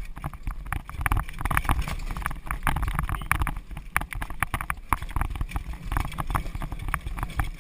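Horse-drawn carriage on the move: irregular rattles and knocks from the carriage and harness mixed with the horse's hoofbeats, over a steady low wind rumble on the microphone.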